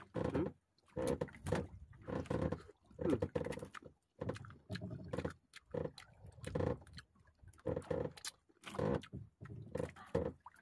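Short bursts of a man's voiced mouth noises as he chews grilled squid, coming once or twice a second.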